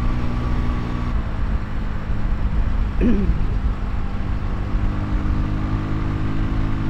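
Vitacci XMT 250 motorcycle engine running steadily at cruising speed, around 50 to 60 mph, under heavy wind rumble on the helmet microphone.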